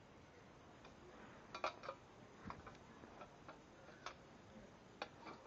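Faint, irregular metallic clicks and ticks of small bolt hardware, nuts and washers, being handled while fitting bolts to the steel stand legs, about eight light clicks at uneven spacing.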